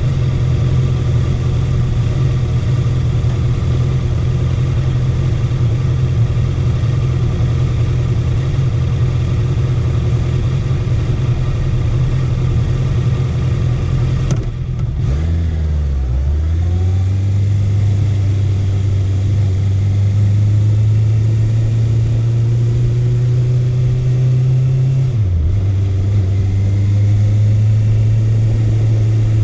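Honda CB650F's inline-four engine running under way at steady throttle. Its note breaks about halfway through and again near the end, as on an upshift, then settles lower and climbs slowly as the bike gathers speed.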